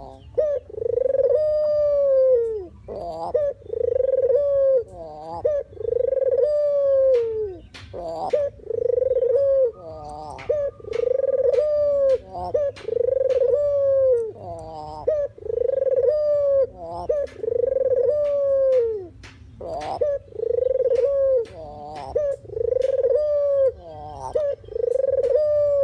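Puter (deruk) dove cooing over and over, about one arching coo a second in an unbroken series, with a few faint higher chirps and clicks between the coos.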